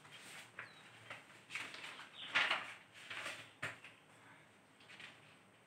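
Faint rustling and handling noises from a person moving about: several soft, short scuffs in the first few seconds, then near quiet.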